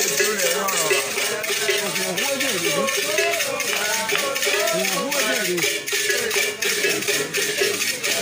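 Ritual singing by several voices, accompanied by the repeated strokes of shaken rattles.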